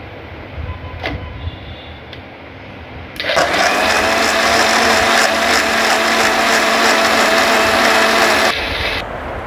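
Electric mixer grinder with a stainless steel jar, blending milk, sugar, ice and crushed Oreo biscuits: a click as the jar is set on the base about a second in, then the motor is switched on about three seconds in, runs loud and steady, and stops shortly before the end.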